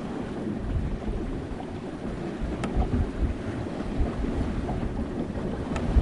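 Sea water washing against a sailboat's hull with wind rumbling in uneven low swells, and a couple of faint sharp ticks.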